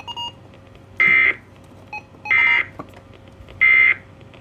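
Emergency Alert System end-of-message signal: three short bursts of buzzy digital data tones about a second apart, the code that closes an EAS warning broadcast.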